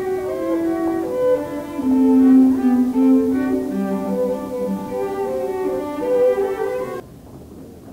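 A violin and cello duo playing live, the cello's low bowed notes under the violin's melody. The music cuts off suddenly about seven seconds in, leaving only low background noise.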